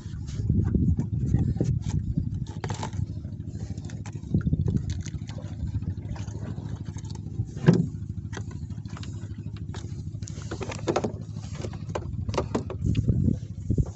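Strong wind buffeting the microphone on a small fishing boat, a low, uneven rumble, with scattered knocks and a sharp thump about eight seconds in.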